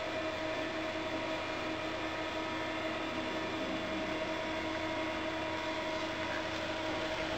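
Steady machine hum: an even hiss with a few constant tones, unchanging throughout.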